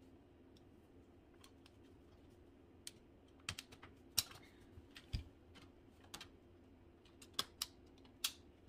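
Sections of a hula hoop being fitted together by hand, giving light, irregular clicks and taps with one duller knock about five seconds in.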